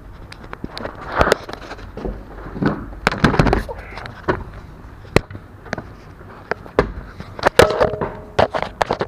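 Handling noise as a small camera is picked up and repositioned: irregular clicks, knocks and rubbing from fingers on the camera body and microphone, with a louder rubbing patch about three seconds in.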